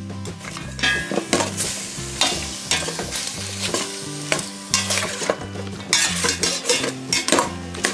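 Raw chicken pieces sizzling as they sear in a stainless steel stockpot, stirred with a metal spoon that scrapes and knocks against the pot over and over at an uneven pace.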